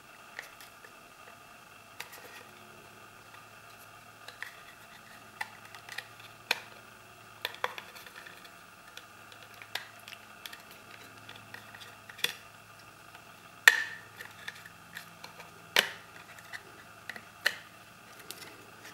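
Scattered clicks and knocks of a hard plastic Otterbox Defender phone case being pried apart, with two louder snaps about two seconds apart past the middle.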